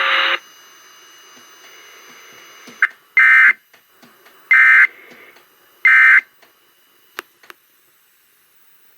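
Three short, loud bursts of SAME digital data tones, the end-of-message signal that closes a NOAA Weather Radio alert test; each burst lasts about a third of a second, a little over a second apart, over faint radio hiss. Just after the start, louder broadcast audio cuts off suddenly.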